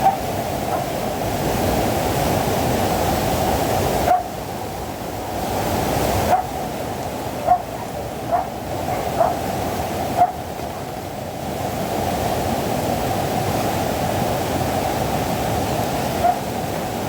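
Floodwater rushing steadily, with a dog barking now and then, about eight short barks spread unevenly over the stretch.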